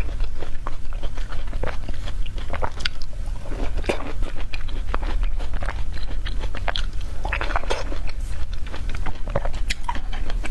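Close-miked biting and chewing of sugar tangerines (shatangju mandarins): a dense run of small irregular clicks and smacks from the mouth.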